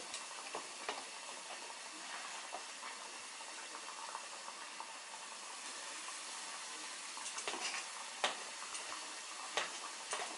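Battered cookies deep-frying in hot oil in a small saucepan, a steady sizzle. A few sharp clicks of metal tongs come through, several of them in the second half.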